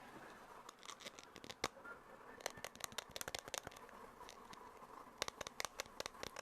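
Close-miked ASMR trigger sounds: clusters of quick, crisp clicks and scratches, sparse at first and then coming in rapid runs.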